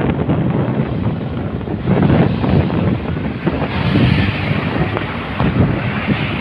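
Wind buffeting the microphone of a moving vehicle on the road: a loud, steady, gusting rumble.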